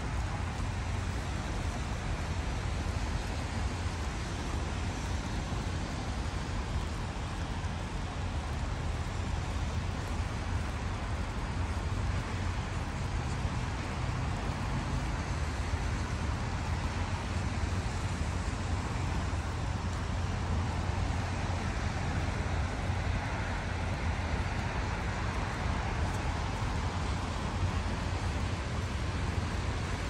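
Steady outdoor city ambience: a low rumble of distant road traffic and wind with an even hiss over it.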